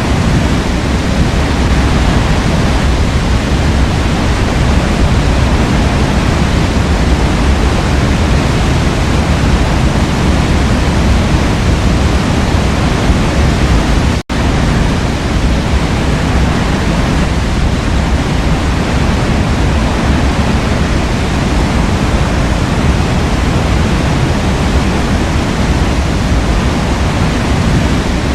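Waterfall in a forest: a steady, dense rush of falling water, heavy in the low end. It cuts out for an instant about halfway through, then carries on unchanged.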